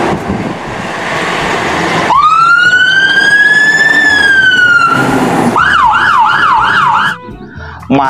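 Fire tanker truck's siren: a loud rushing noise for the first two seconds, then one long wail that rises and slowly falls. About five and a half seconds in it switches to a fast yelp of about three sweeps a second.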